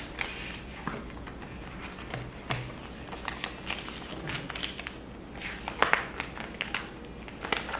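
Paper banknotes rustling and crinkling as they are folded and handled, with scattered light clicks and taps. The loudest crackles come about six seconds in.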